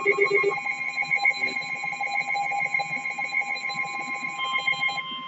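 Electronic emergency-alert tones: rapid pulsing beeps at several pitches at once, with a steady alert tone starting about half a second in. The beeping stops just before the end, leaving the steady tone.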